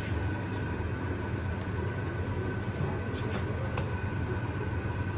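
Steady low machine hum with a faint high whine over it, and a couple of light clicks.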